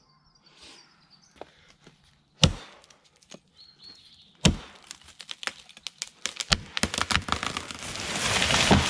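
A Hultafors felling axe strikes the trunk hard a few times, about two seconds apart. Then the hinge wood cracks and splinters in a quickening run, and the leaning tree crashes down through the branches near the end.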